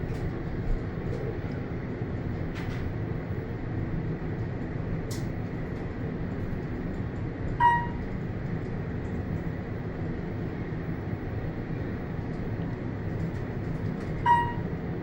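Otis 211M elevator car travelling, with a steady low rumble of the ride. A short electronic beep sounds twice, about seven seconds apart, the second shortly before the car stops.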